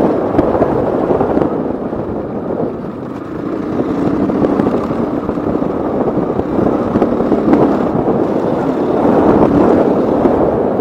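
KTM 450 EXC single-cylinder four-stroke enduro engine running hard at speed. It eases off about two seconds in and builds back up from around four seconds.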